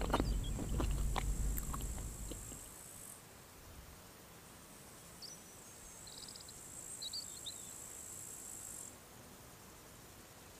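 Crickets chirring steadily in summer countryside ambience, the chirr cutting off near nine seconds, with a few short bird chirps in the middle. The loudest part is at the start: a low rumble with several sharp knocks over the first two seconds or so.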